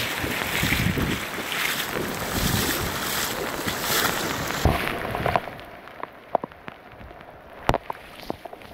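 Steady rushing of wind on the microphone and river water, which drops away sharply about five seconds in, leaving scattered small clicks and taps.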